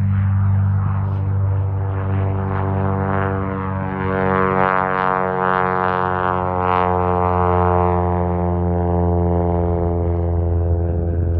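Propeller airplane on its takeoff run, passing by: a buzzing stack of tones that swells to its loudest about five to eight seconds in and drops slightly in pitch as it goes past. A steady low hum runs underneath.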